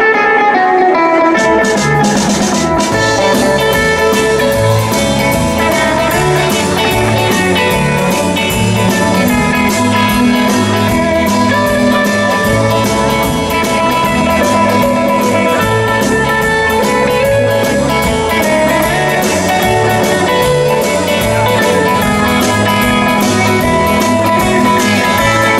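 Live rock band playing: electric guitar over drum kit and bass, with a steady pulsing beat and cymbals.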